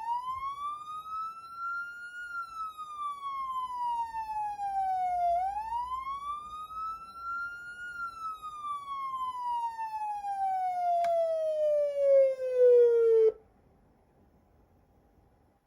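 Federal Signal PA300 electronic siren sounding its wail tone: the pitch rises and falls slowly twice, then slides down in one long fall and cuts off suddenly about 13 seconds in.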